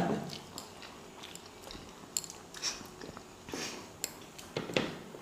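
People chewing mouthfuls of boiled egg, with scattered small mouth smacks and clicks.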